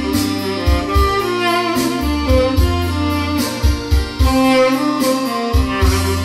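Tenor saxophone with a brass mouthpiece playing a melody, some notes held with vibrato, over a backing track with bass and a steady beat. The sax is recorded dry, with no added effects.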